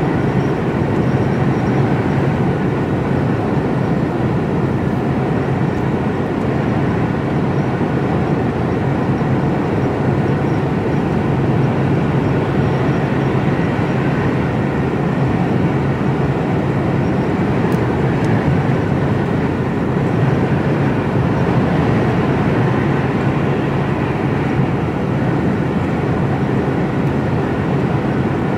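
Steady drone of an HGV truck's diesel engine with road and tyre noise, heard inside the cab while driving at a constant pace.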